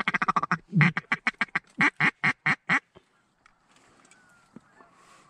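Mallard duck call blown by a hunter. A fast run of feeding chatter slows, about a second in, into a string of separate loud quacks, roughly four a second, and stops about three seconds in.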